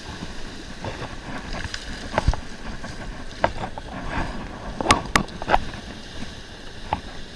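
Surf washing with wind on the microphone, and scattered clicks and knocks from handling a fishing rod and spinning reel, the sharpest pair about five seconds in.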